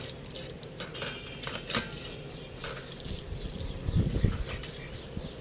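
Hand pump being worked, with scattered clicks and knocks from its handle and the patter of water running over a hand onto the ground. A few low thumps come about four seconds in.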